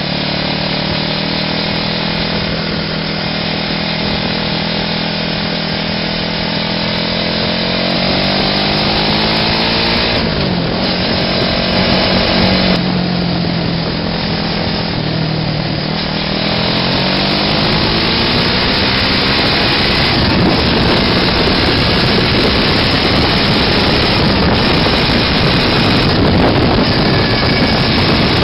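Small buggy engine running while driving, with a buzzy, chainsaw-like sound. Its revs climb and drop several times in the first half. In the second half the engine sound gives way to a louder, steady rush of engine, road and wind noise.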